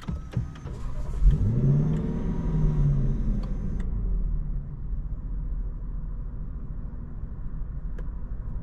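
Lexus LC500's naturally aspirated 5.0-litre V8 starting: about a second in it fires and flares up in a rising rev, holds there briefly, then drops back to a steady idle.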